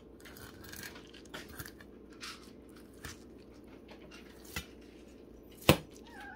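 Fillet knife slicing through a vermilion rockfish on a plastic cutting board: soft, intermittent cutting and scraping strokes, with one sharp click near the end. A cat starts to meow right at the end.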